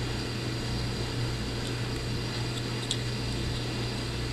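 Steady low hum over a faint even hiss, with one faint click about three seconds in.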